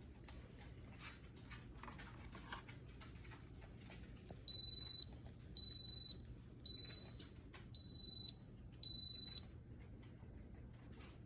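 Five high-pitched electronic beeps from the espresso machine's control panel, each about half a second long and about a second apart, starting about halfway through. Before them, only faint handling clicks.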